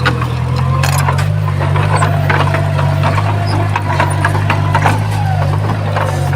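Diesel engine of heavy earthmoving machinery running steadily, with a faint wavering whine and scattered metallic clanks and knocks, typical of a bulldozer or dump truck working stone and soil.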